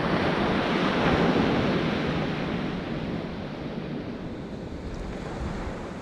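Sea surf washing on the beach, swelling about a second in and then slowly easing off, with wind rumbling on the microphone.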